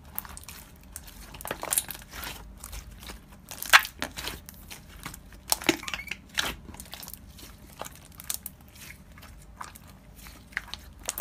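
Slime being squished and pressed by hand, giving irregular sticky clicks, pops and crackles, with the sharpest pop nearly four seconds in.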